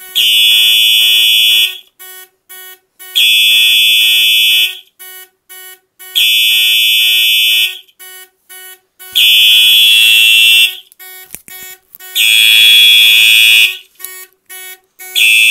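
Simplex 4903-9236 electronic fire alarm horn sounding in loud, harsh blasts about a second and a half long, repeating every three seconds, with the Simplex 4002 panel's alarm buzzer beeping quickly and faintly in the gaps. Together they are the sound of the panel in alarm after a pull station on zone one was pulled.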